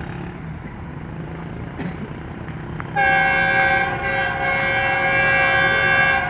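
Pakistan Railways passenger locomotive's horn sounding one long blast of several notes at once, starting about halfway in, with a brief dip partway through, over a steady low train rumble.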